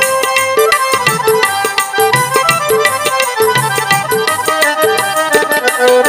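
Tabla playing a lively rhythm with a Roland XPS-10 keyboard carrying the melody in a devotional bhajan. The drum strokes ring steadily throughout, with deep bass-drum notes under sharper ringing treble strokes.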